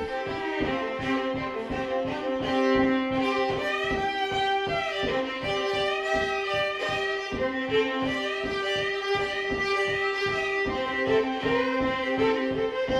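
Fiddle music: a bowed violin melody over held drone notes, with a steady beat underneath.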